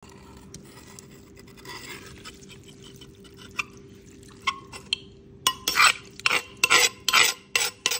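Dressed rice-noodle salad being stirred and lifted in a wooden mortar: soft wet clicks at first, then a quick run of about seven louder wet squishes over the last two and a half seconds.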